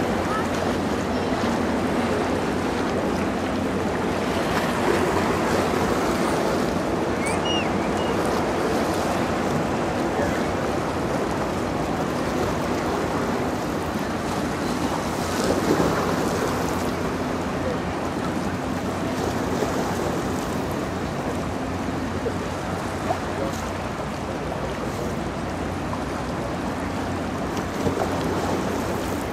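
Steady low engine hum from the passing 730-ft lake freighter Kaministiqua, over a constant wash of moving water and some wind on the microphone.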